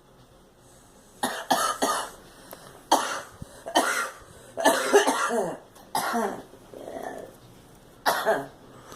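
A girl coughing in a run of about eight separate coughs, starting about a second in, several trailing off with a falling pitch.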